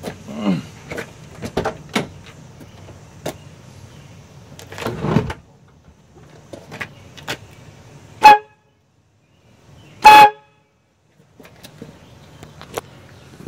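Two short, very loud blasts of aftermarket air-powered train horns, about two seconds apart, each a chord of steady stacked tones cut off abruptly. Before them come scattered clicks and handling noise.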